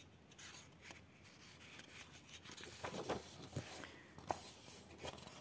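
Faint rustling and a few small clicks from a colouring book and markers being handled.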